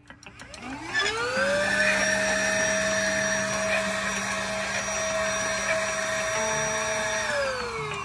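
Absob AB-114 cordless handheld vacuum cleaner switched on: its motor whine rises quickly in pitch as it spins up, runs steadily with a rushing airflow hiss for about six seconds, then winds down in pitch near the end as it is switched off.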